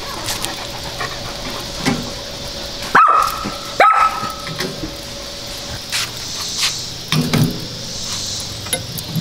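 A dog barking twice, about three and four seconds in, over light metal clinks of tongs and a tray on a grill grate.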